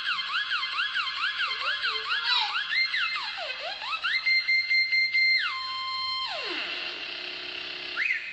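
Dance music played on a television, led by a synthesizer tone that warbles up and down like a siren, about two and a half swoops a second. About halfway through it glides up and holds a high note, then drops and slides down to a low pitch.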